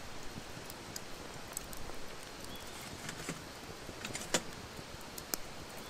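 Small wood fire crackling: a few sharp, irregular pops over a steady low hiss.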